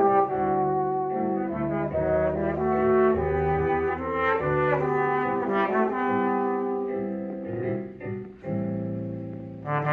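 A tenor horn, trombone and piano trio playing, the brass holding long notes over the piano. There is a brief dip in the sound about eight seconds in before the next phrase starts.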